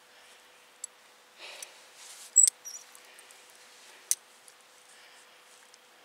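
Faint rustling and a few sharp clicks from gear being handled. The loudest is a sharp click with a brief high squeak about two and a half seconds in, with another click about four seconds in.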